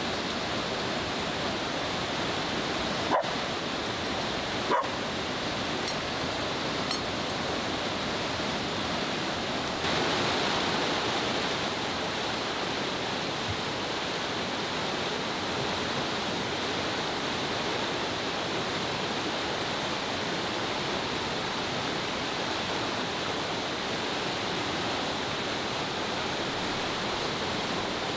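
Steady rush of a fast-flowing river in white-water spate, getting a little louder about ten seconds in. Over it a golden retriever gives two short barks, about three and five seconds in.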